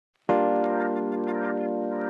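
Intro music: after a brief silence, a full sustained chord comes in suddenly and holds, with faint light ticks of percussion above it.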